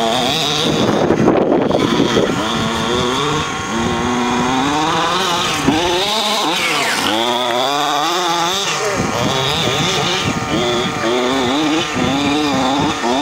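Radio-controlled buggy's small two-stroke engine revving up and down again and again as the car is driven hard around a dirt track, with a high whine over the engine note.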